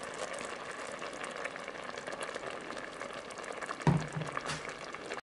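Sauce simmering at a steady bubble in a stainless steel pot while liquid cream is poured in. About four seconds in comes a single knock, the loudest sound.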